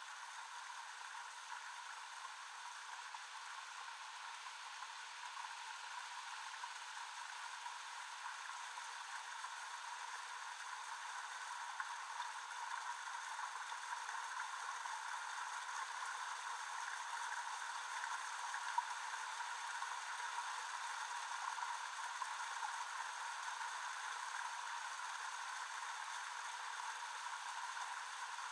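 A steady hiss of filtered noise, like static or rushing water, with the low end cut away and a few faint steady tones inside it, slowly growing louder.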